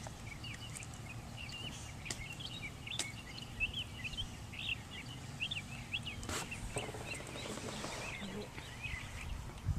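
Small birds chirping: many short rising and falling notes, one after another, over a steady low background rumble, with a few faint clicks.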